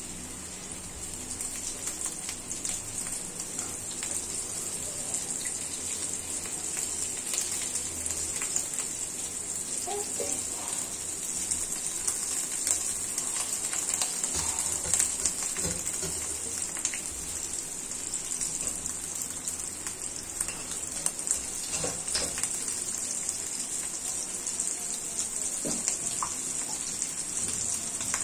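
Unniappam batter frying in hot oil in the wells of an unniappam pan: a steady sizzle with scattered crackles that grows louder as more wells are filled.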